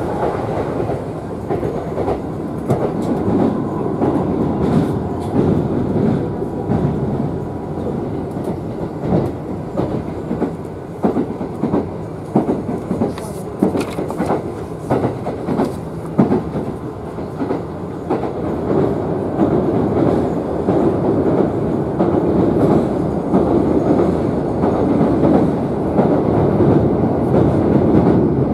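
Kintetsu electric train running, heard from inside the carriage. A steady rumble carries rapid wheel clicks over the rail joints, and the rumble grows louder and smoother over the last third.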